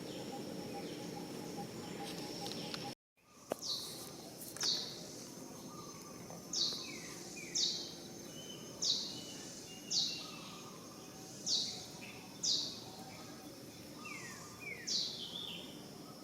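Short, high calls that sweep downward, repeated roughly once a second and often in pairs, over a steady outdoor background. The sound drops out suddenly about three seconds in, and the calls begin just after.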